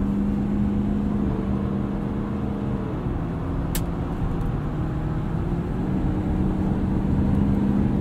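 2017 Ford F-250 Super Duty's 6.7-liter Power Stroke turbo-diesel V8 heard from inside the cab while driving, a steady drone over road noise. The engine note dips about three seconds in and settles back near six seconds, with a single sharp click a little before the middle.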